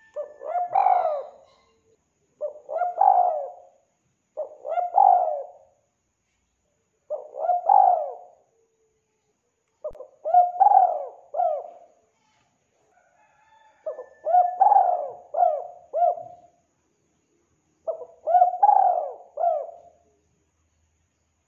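Spotted dove cooing: about seven phrases in a row, each a short run of a few rising-and-falling coos, with clean silence between phrases.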